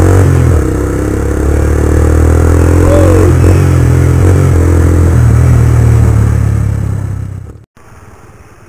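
Suzuki Gixxer 155's single-cylinder engine running through a replica Akrapovic exhaust while the bike is ridden, its note rising and falling with the throttle over wind and road noise. The sound cuts off abruptly about a second before the end.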